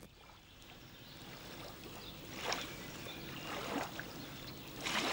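Small waves lapping against a rocky lakeshore, a soft steady wash of water with a brief splash about two and a half seconds in and another near the end.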